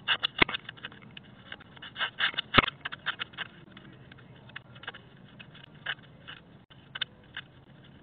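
A hand scraping, rubbing and knocking directly on a Ring video doorbell, picked up by the doorbell's own microphone: irregular clicks and scrapes, thickest in the first three seconds and sparser after, with two sharper knocks about half a second in and about two and a half seconds in.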